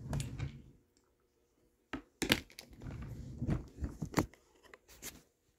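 Close crackling and rustling with several sharp crunches, in bursts: one at the start, then a busier run from about two seconds in.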